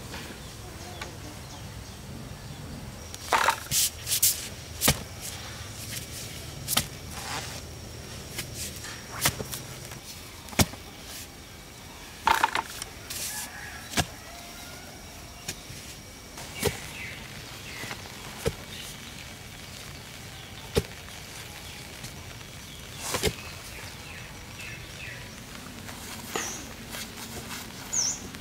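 Irregular sharp knocks and cracks, about fifteen strikes at uneven intervals, like a hand tool striking wood or ground. A low hum runs under them for roughly the first ten seconds.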